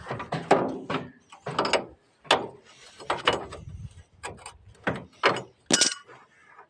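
Irregular metallic clanks and knocks, about a dozen, a few ringing briefly, from hand tools working on a rickshaw's metal parts.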